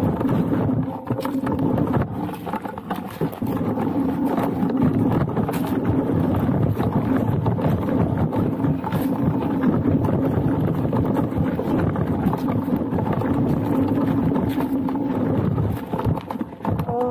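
Laotie ES19 electric scooter lying on its side with a wheel spun under throttle against the gravel: a loud, steady motor whine with the tyre grinding and flinging grit, dropping away near the end.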